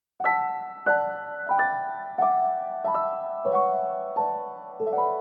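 Background piano music: gentle chords played about every half second, each ringing and fading before the next.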